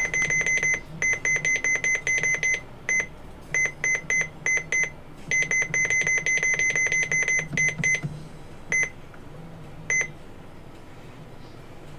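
An electronic alarm beeping: rapid runs of short, high-pitched beeps in irregular bursts, thinning to a few single beeps and stopping about ten seconds in.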